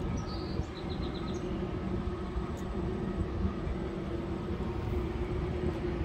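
Steady low mechanical rumble with a constant hum held through it, and a few faint high chirps in the first second or so.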